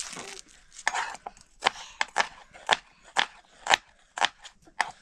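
A knife chopping food in steady, regular strokes, about two a second, each one a sharp strike.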